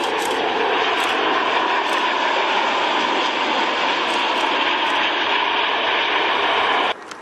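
Loud, steady jet engine noise from an Icelandair Boeing 757-200's Rolls-Royce RB211 turbofans as the airliner touches down and rolls out along the runway. The noise cuts off abruptly near the end.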